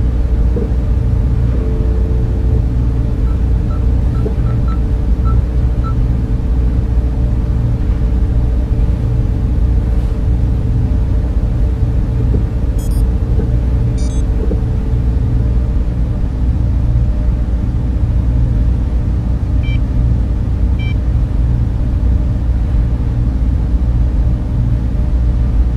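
Sci-fi spaceship interior ambience: a steady low rumble and machine hum. A run of faint electronic beeps comes a few seconds in, two high chirps come in the middle, and two short beeps come near the end.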